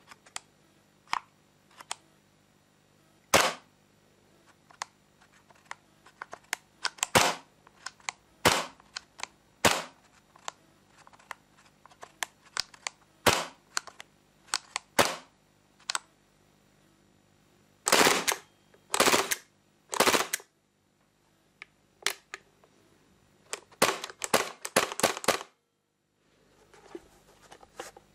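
Sharp mechanical clicks and snaps from a Tanio Koba VP70 airsoft pistol worked by hand, its trigger being pulled. The clicks come singly, a second or two apart, with three longer, rougher sounds about two-thirds of the way through and a quick run of clicks after them.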